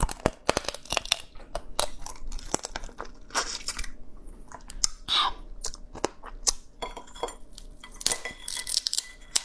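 Close-miked eating of a raw marinated crab: the shell cracking and crunching between the teeth and hands, with chewing and wet tearing as the body is pulled apart.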